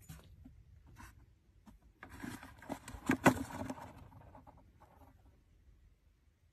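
Scraping and rustling as an owlet is handled and lifted out of a plastic tub, with two sharp clicks a little after three seconds in and the noise fading out toward the end.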